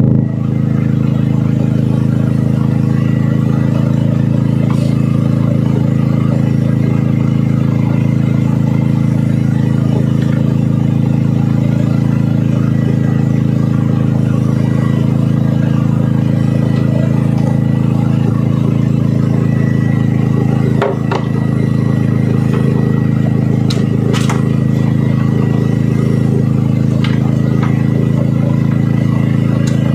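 An engine aboard a squid-fishing boat running steadily with an even, unchanging drone. A few faint clicks come through it in the second half.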